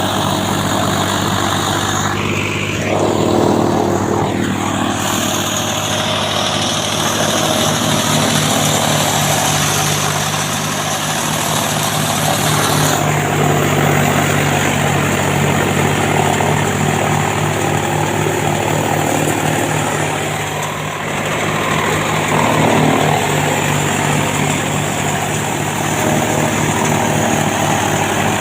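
Chaff cutter running steadily, with a constant low machine hum.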